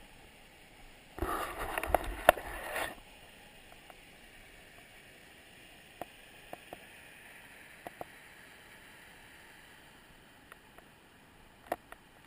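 Faint steady rushing of floodwater churning through a river lock and its sluice gates. About a second in comes a loud rush of noise lasting under two seconds, and a few light clicks follow later.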